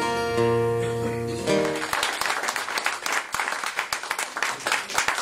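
Acoustic guitar ringing out held notes that stop about a second and a half in, followed by an audience clapping.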